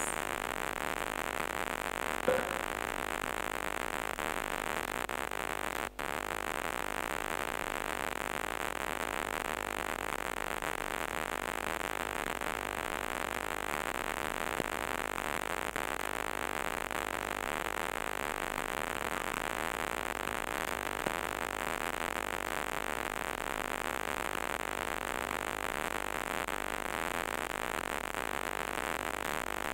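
Steady static hiss from a poor recording, with no other clear sound. It cuts out for an instant about six seconds in.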